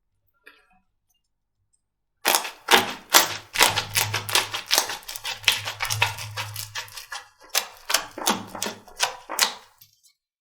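Slime being squeezed and pressed, giving a rapid run of crackling pops and clicks that starts about two seconds in and stops shortly before the end.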